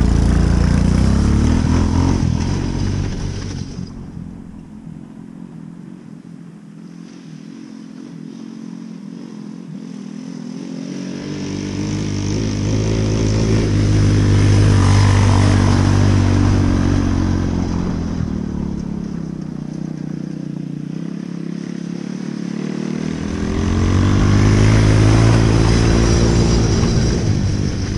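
Coolster mini Jeep's 125cc engine running as the jeep drives across a field. It fades as it pulls away, then grows louder twice as it comes back past, loudest about halfway through and again near the end, its pitch rising and falling with the throttle.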